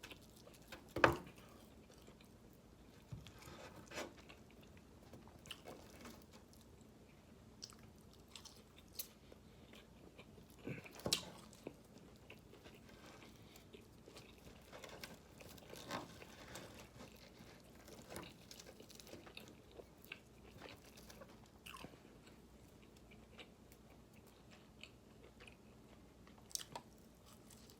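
Close-miked chewing and biting of crispy fried chicken, with scattered crunches and sharp clicks among quieter chewing.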